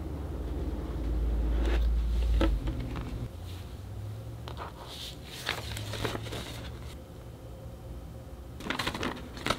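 Unboxing handling noises: a low rumble as the photobook box is moved and opened, then intermittent crinkling and rustling of a crumpled paper drawstring pouch being lifted out and handled, with a short burst of crinkling near the end.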